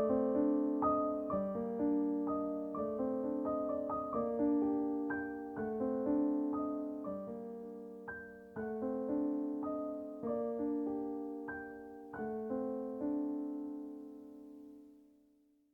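Soft solo piano background music, gentle notes ringing and decaying, fading out to silence near the end.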